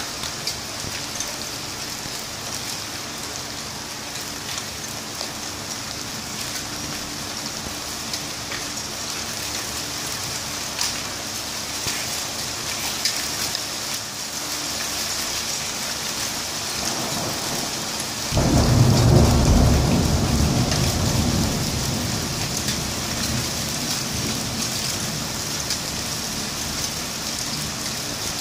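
Steady heavy rain, with close thunder about two-thirds of the way through: a sudden loud clap followed by a low rumble that dies away over several seconds.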